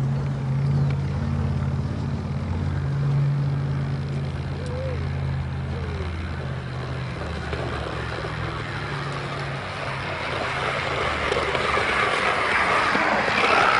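A low, steady engine hum that fades out after about ten seconds, while a broad rushing noise grows louder toward the end.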